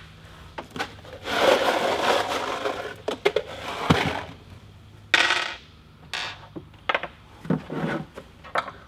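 Hard plastic rope-ladder steps being handled on a wooden workbench: a scraping rub about a second in, then a run of sharp clacks and knocks as the steps are moved and set down.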